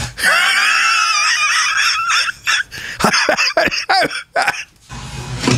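A man laughing hard: a high, wavering squeal of laughter for about the first two seconds, then short breathy bursts that die away near the end.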